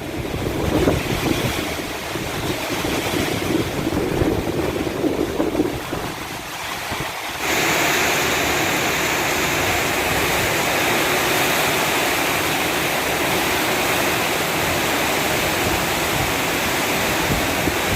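Summer storm wind gusting and buffeting the microphone with an uneven, swelling noise. About seven seconds in, this gives way abruptly to a steady, even storm hiss.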